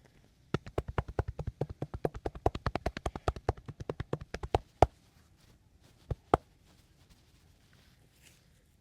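Rapid percussive massage strokes, a masseur's hands slapping or chopping on a body at about eight strikes a second for around four seconds. Two more single slaps follow a second later.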